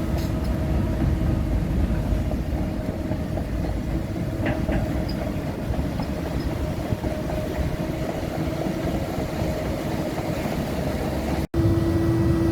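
CAT 307 amphibious excavator's diesel engine running steadily, with a constant whine over the engine rumble. The sound cuts out for an instant near the end, and the whine is louder after it.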